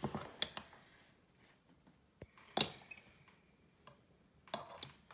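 Glass jar of pickled radishes being handled as slices are taken out: a few light clicks and clinks, one sharp clink about halfway through with a brief ring after it, and a few more taps near the end.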